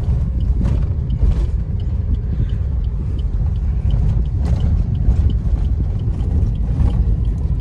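Car driving slowly over a rough, stony dirt track, heard from inside the cabin: a steady low rumble of engine and tyres, with a few knocks from the wheels and suspension. Faint high ticks repeat about three times a second.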